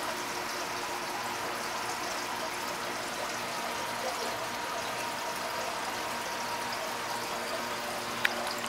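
Aquarium water circulation: a steady trickling, splashing hiss of filter-driven water and bubbles at the tank's surface, over a faint steady hum. There is a single short click near the end.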